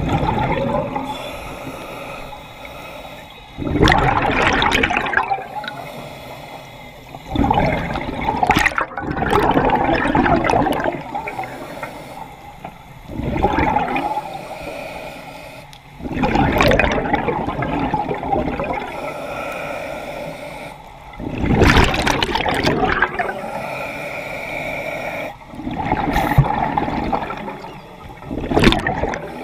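Scuba diver breathing through a regulator underwater: loud bubbling bursts from each exhale, about every four seconds, with quieter hissing between them.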